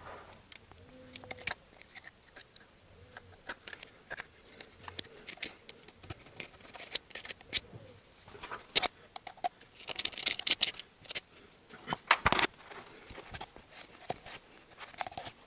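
A steel awl scraping and picking at old gasket remnants, dried hard like plastic, in the groove of a Toyota 3S-FE-family oil pump housing: an irregular run of short scratches and clicks.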